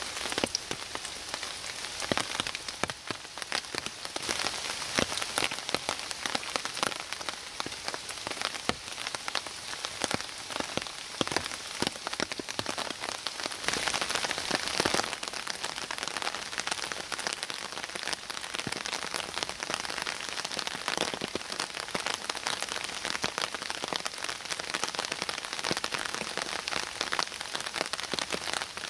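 Steady rain falling in woodland, an even hiss with many separate close drop hits throughout.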